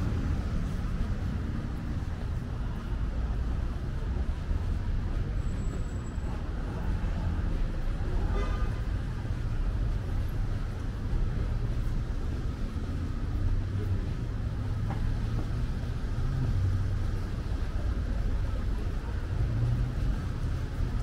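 Steady low rumble of city road traffic, with a brief higher-pitched sound about eight and a half seconds in.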